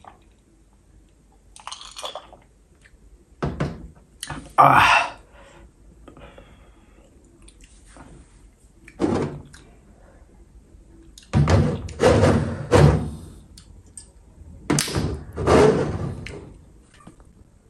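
A series of close-miked thunks and knocks as a whisky glass and bottle are handled and set down on a table, in several separate clusters with quiet gaps between.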